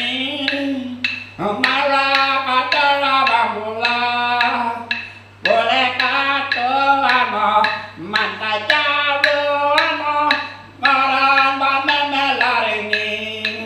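A man singing a traditional Aboriginal song from the Western Desert in long held phrases that fall in pitch at the end of each, over a steady beat of sharp taps.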